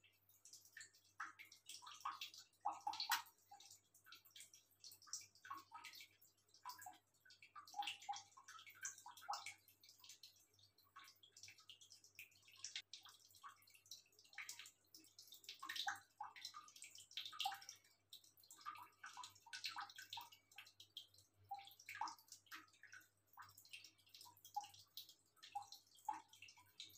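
Cats lapping water from a small bowl: faint, irregular wet laps and drips.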